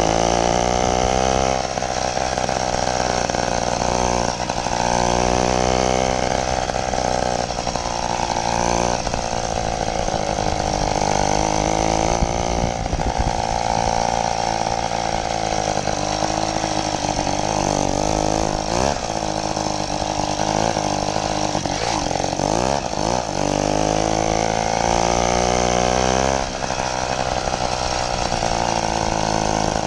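80cc two-stroke motorized-bicycle engine running under way, its buzzing pitch rising and falling several times as the throttle is opened and eased off.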